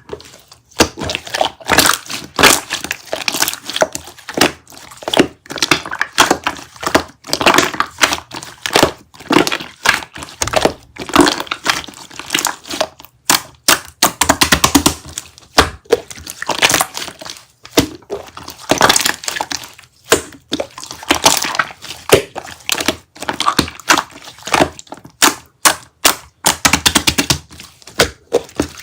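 Dense, irregular crinkling and crackling with occasional knocks, in quick clusters separated by short pauses: something crinkly, such as packaging, being handled and squeezed.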